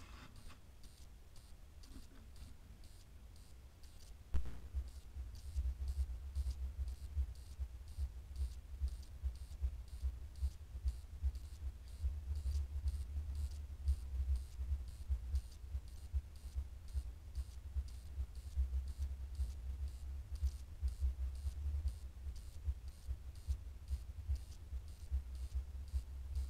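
Trail camera's own recording noise: a low rumble that starts with a click about four seconds in, under faint, regular electronic ticking.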